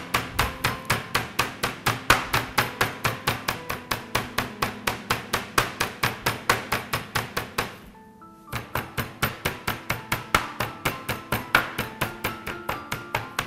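Wooden rolling pin beating chicken flat through plastic wrap on a worktop: quick, even thuds about four a second, with a short break a little past halfway.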